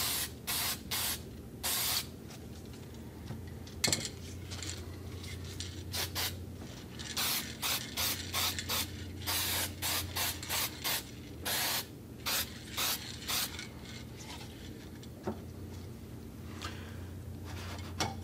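Aerosol paint spray can hissing in many short bursts, quick passes of a touch-up coat, in two runs with a pause of a few seconds between them.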